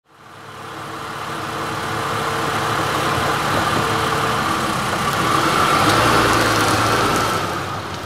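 Slow road traffic: a car's engine hum and tyre noise grow louder to a peak about six seconds in, then begin to fade as it passes.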